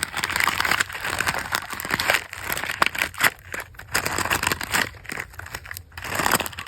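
Squishy fidget toy being squeezed and kneaded by hand, giving a dense, irregular run of crunchy crackling.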